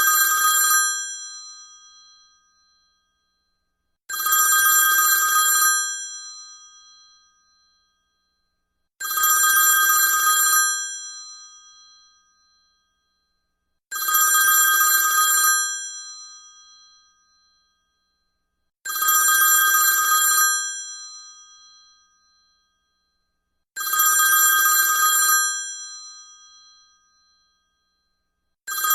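iPhone telephone-bell ringtone: a rattling old-style phone bell rings in bursts of about a second and a half, each dying away, and repeats about every five seconds.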